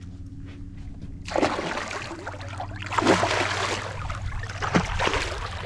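Water splashing and sloshing, starting about a second in and coming in several surges, over the steady low hum of a boat motor.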